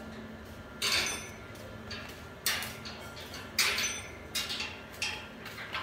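Laptop touchpad and keys clicked and tapped about six times at irregular intervals, each a short sharp click.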